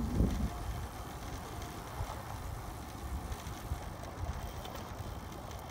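Bicycle rolling along a paved road: a steady low rumble of tyre noise and wind on the microphone.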